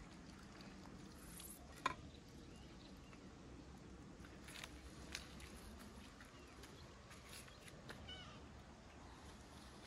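Near silence: low room noise with a few faint clicks and taps, one sharper click about two seconds in.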